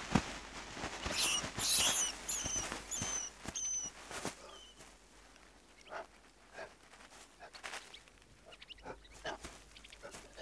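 Giant mole rat squeaking: a quick series of short, high, slightly falling squeaks from about one to four seconds in, while it fights off an Ethiopian wolf digging at its burrow. Scattered scratching and rustling of the wolf's paws and muzzle in dry soil and grass.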